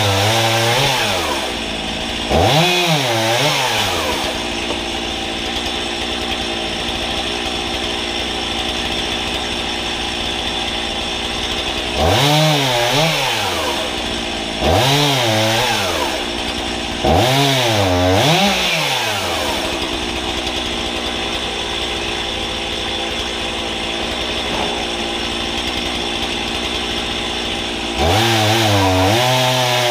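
A two-stroke gas chainsaw, mounted on a homemade pivoting frame, idling between cuts and revving up about six times to cut logs into firewood rounds. Each cut lasts one to two seconds, its pitch rising and then falling, before it drops back to idle.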